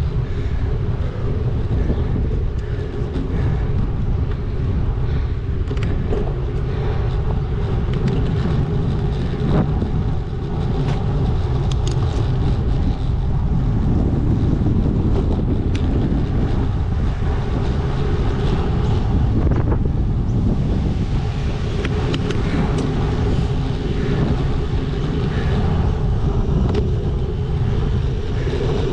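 Wind buffeting the microphone of a camera on a moving bicycle, a steady low rumble, with road traffic running alongside.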